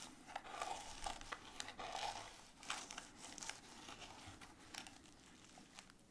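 Metal spatula scraping and picking at brittle, moldy watercolor paper to separate its layers: faint dry scratching and crackling with small clicks, busiest in the first three seconds and sparser after.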